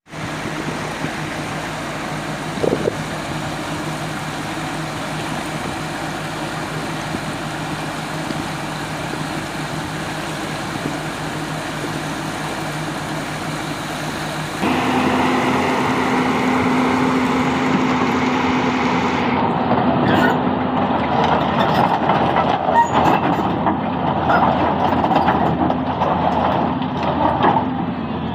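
Hyundai 220 excavator's diesel engine running steadily. About halfway through, the sound jumps abruptly to a louder engine with a higher hum. From about two-thirds in, irregular knocks and clatter come through as the machine works.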